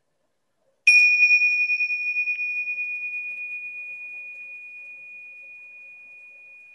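Tingsha cymbals struck together once, about a second in, ringing a single clear high tone that slowly dies away, still sounding at the end. The ring signals the start of a meditation.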